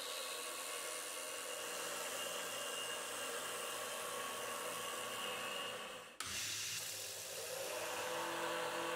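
PM25 milling machine cutting aluminium plate: steady spindle and cutter tones under a constant hiss from a mist-coolant sprayer. About six seconds in the sound breaks off abruptly and resumes with a different, lower set of steady tones as a face mill cuts.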